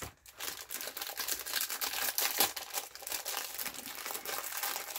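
Clear plastic cookie tray crinkling and crackling as a cookie is worked out of it, a continuous rustle full of many small sharp snaps.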